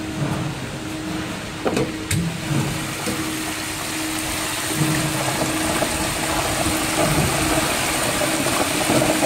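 Commercial chicken pressure fryer being opened: two metallic clacks from the lid's crank handle about two seconds in, then hot oil bubbling and sizzling in the open fry pot, growing denser partway through, over a steady low machine hum.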